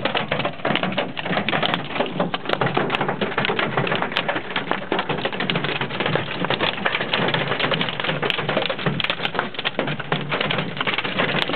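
Hailstones pelting a car's roof, hood and windshield in a dense, rapid clatter, heard from inside the car, over the hiss of heavy rain.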